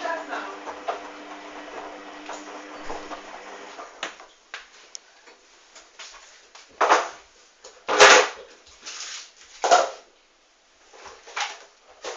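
Hoover DYN 8144 D washing machine humming steadily, the hum stopping about four seconds in. Several loud clunks and knocks follow over the next seconds.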